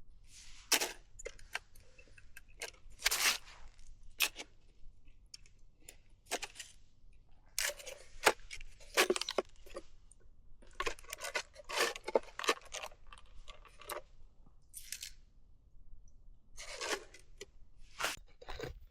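Irregular crunches, rustles and clicks of things being handled, some short and sharp, some drawn out over half a second or so.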